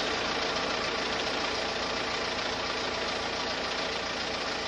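An engine running steadily, a constant drone under an even hiss that does not change.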